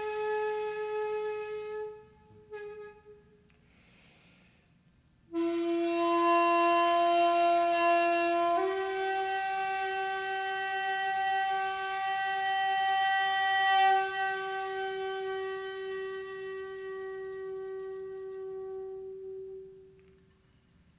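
Flute-like wind instrument playing long held notes as outro music. One note dies away about two seconds in; after a short quiet gap a lower note starts abruptly, steps up to a higher note about three seconds later and is held, slowly fading out near the end.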